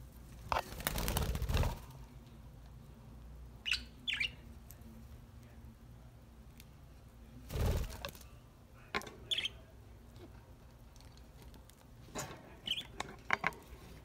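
Caged budgerigars making scattered short, high chirps, with two brief bursts of wing flapping, one about a second in and one around the middle.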